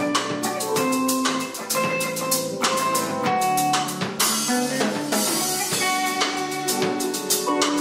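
Live band music: a single-cutaway electric guitar playing a melody over a Pearl drum kit, with a second electric guitar accompanying.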